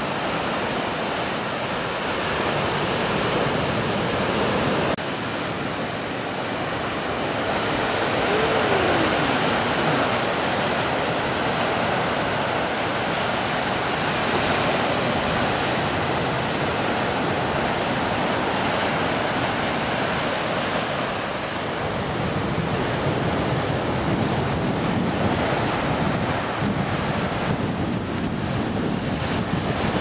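Caribbean Sea waves breaking and washing over rocks and a stone breakwater: a steady rush of surf.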